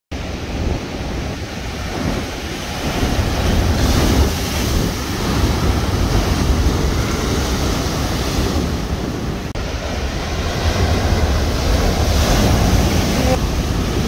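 Atlantic surf breaking and washing onto a beach, swelling and easing, with wind buffeting the microphone in a steady low rumble.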